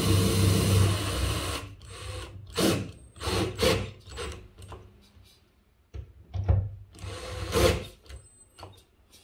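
A handheld power tool runs for about a second and a half and stops, followed by a string of short knocks and scrapes, with a brief near-silent pause midway.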